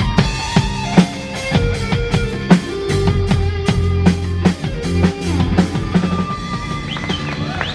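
Rock band playing live: electric guitar lines over bass guitar and a steady drum-kit beat.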